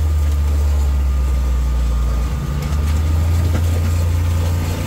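Side-by-side UTV's engine running steadily as it drives through brush, pulling a running Swisher tow-behind rough-cut mower; a steady low drone that dips briefly a little over two seconds in.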